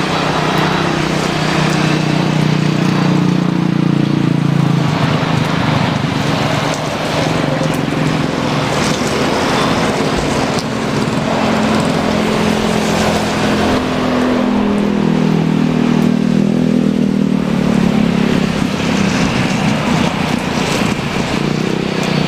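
Jet airliner engines running loud and continuous, with a low hum that dips in pitch about two-thirds of the way through and then climbs again, over a steady rushing noise.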